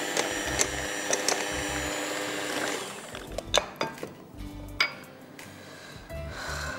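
Electric hand mixer running steadily, beating butter, sugar and egg in a glass bowl; it switches off about three seconds in. Two sharp clinks follow.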